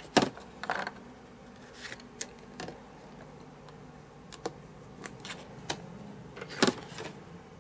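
Stamparatus stamp-positioning tool being handled while re-stamping: cardstock slid into the platform corner and the clear hinged stamp plate pressed down and swung open. This gives scattered light clicks and taps, the sharpest just after the start and again about two-thirds of the way through.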